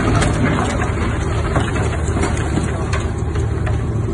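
A large vessel's engine running with a steady low hum, with scattered sharp cracks and knocks as its hull rams into a moored sailing yacht.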